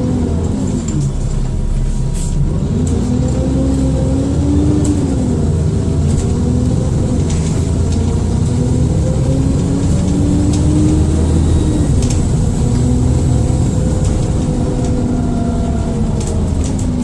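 Engine and drivetrain of an Alexander Dennis Enviro400 double-decker bus on a Dennis Trident II chassis, under way, its pitch rising and falling several times as it pulls away and eases off. A faint high turbo whine runs above the engine note.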